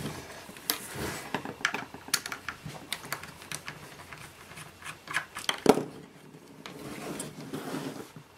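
Small clicks and ticks of a screwdriver backing out the small Phillips screws of an aircraft fuel-used quantity indicator's case, with a sharper knock a little before six seconds in and soft rubbing as the cylindrical case is handled near the end.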